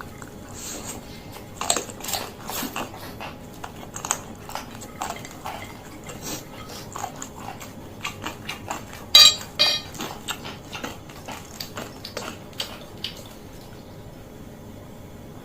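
Chewing and slurping of fried noodles (mie goreng Aceh): a steady run of wet mouth smacks and clicks, with one louder, sharper sound about nine seconds in.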